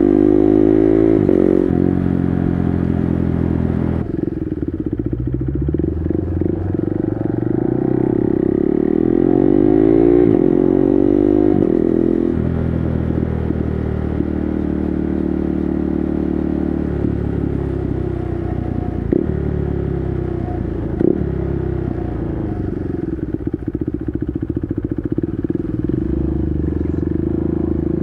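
KTM 390 Duke's single-cylinder engine riding under load through an SC-Project exhaust with the dB killer removed. The revs fall in the first second or two and climb again from about eight to twelve seconds in, then hold at a steady lower note. Two short sharp cracks come about two seconds apart near the middle.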